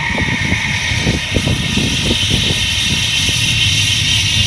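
A man vocally imitating an airliner's engines spooling up for takeoff into a handheld microphone: a hissing whine that rises in pitch and grows slightly louder over a low rumble.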